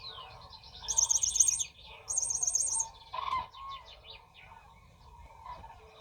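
High, rapidly pulsing chirped trills, twice in quick succession, each lasting under a second. A shorter, louder call follows, then softer scattered bird-like chirps.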